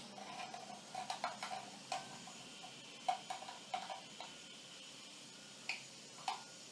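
Light metallic clinks and taps, about a dozen in irregular clusters, each with a brief ring, as the metal parts of a washer-dryer's drying fan motor are handled and fitted back together.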